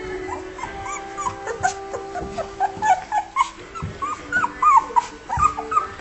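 Young Scotch collie puppies whimpering and squeaking: many short, high calls that rise and fall, coming thicker and louder from about halfway through.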